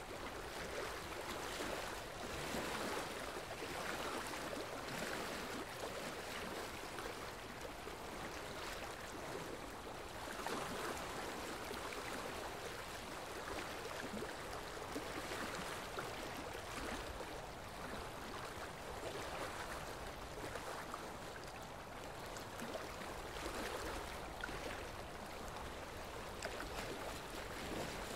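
Steady rushing noise of running water, like a stream, swelling and easing a little every few seconds.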